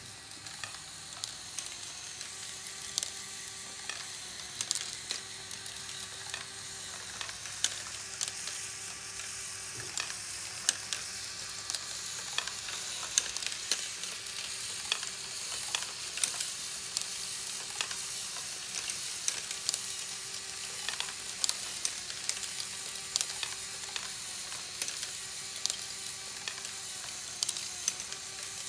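LEGO Great Ball Contraption scissor-lift and ratchet modules running. A small electric motor hums with a short break in a regular cycle about every two seconds, under frequent sharp clicks and clatter of the plastic mechanism and balls.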